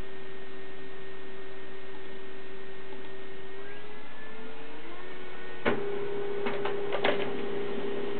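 Desktop printer running with a steady electric hum whose pitch glides up a little about halfway through. A sharp click comes about two thirds in, after which the hum is louder, and a few more quick clicks follow shortly after.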